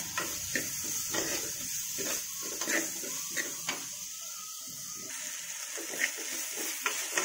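Chopped onions, tomato and chillies sizzling in oil in a clay pot while being stirred with a steel spoon, the spoon scraping and tapping against the pot now and then over a steady hiss.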